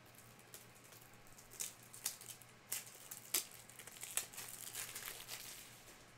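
Plastic trading-card pack wrapper being torn open and crinkled, with a run of sharp crackles that die away near the end.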